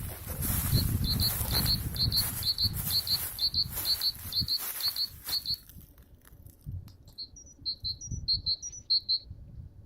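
A small songbird repeating a short, high two-note phrase about twice a second, over a steady rustling noise that stops a little past halfway; the bird goes on alone and falls silent near the end.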